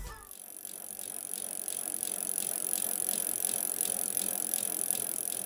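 Carbon full-suspension 29er mountain bike rolling on the trail, its freewheel ticking and the chain and frame rattling.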